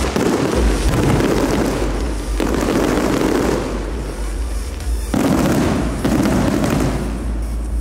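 Aerial fireworks shells bursting overhead in a dense, continuous barrage of bangs and crackle, with sudden fresh volleys about two and a half and five seconds in.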